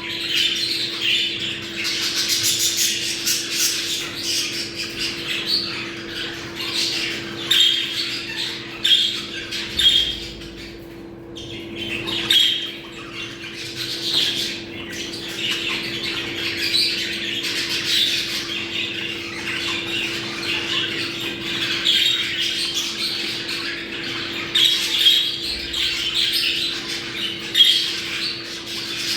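A flock of budgerigars chattering and warbling without pause, the busy breeding-season chatter of budgies, which thins out briefly around eleven seconds in. A steady low hum runs underneath.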